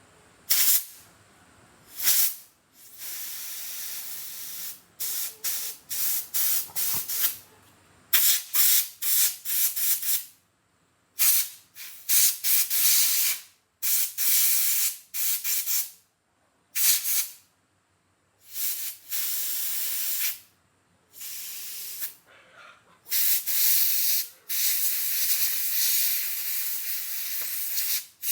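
Compressed air hissing from a trigger-operated air gun in repeated bursts, some short, some held for a second or more, with brief silences between.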